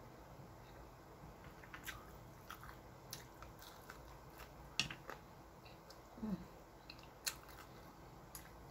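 A person chewing food with scattered soft wet mouth clicks and smacks, the sharpest a little past halfway.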